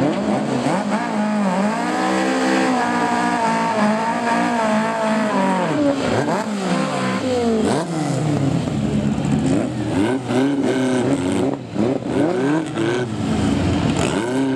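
VW Beetle drag cars revving hard and holding revs on the start line. About six seconds in they launch and accelerate away, the engine pitch climbing again and again as they shift up through the gears.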